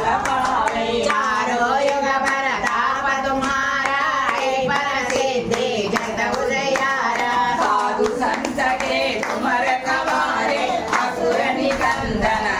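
A group of mostly women's voices singing a Hindu devotional chant together, with hand-clapping running along with the singing.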